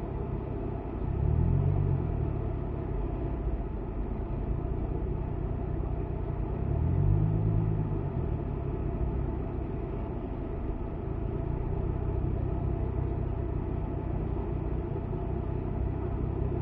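Car driving, heard from inside the cabin: steady engine and road rumble, swelling louder twice as the engine pitch rises and falls, briefly about a second and a half in and again around the middle.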